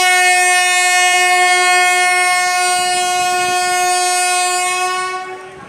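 WAP-1 electric locomotive's horn sounding one long steady blast that cuts off shortly before the end, over the faint rumble of coaches rolling past.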